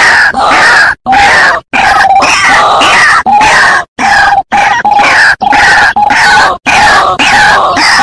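White-breasted waterhen calling: a loud run of repeated harsh calls, about two a second, broken by several sudden short silences.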